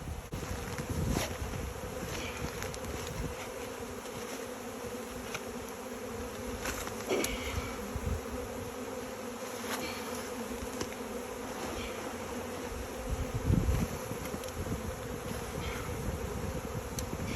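Honeybees from a swarm buzzing in a steady hum, with a few light knocks.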